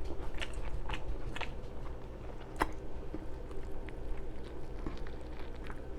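Close-up mouth sounds of someone chewing a pastrami cheeseburger with open-mouthed, wet lip smacking: a string of short smacks and clicks.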